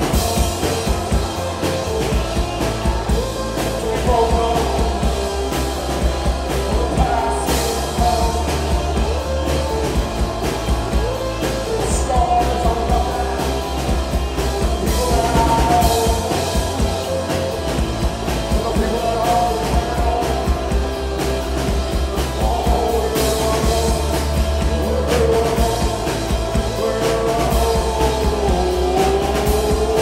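Rock band playing live: distorted electric guitars, bass guitar and drum kit going continuously, with a man singing over them, heard in the room of a small club.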